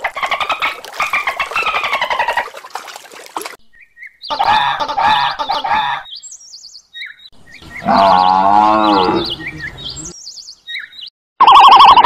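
Animal calls in separate short bouts. First a bottlenose dolphin's rapid squeaking whistles, falling in pitch, for about three and a half seconds. Then wavering calls, a deeper wavering call about two-thirds of the way in, and near the end loud repeated peeping from ostrich chicks.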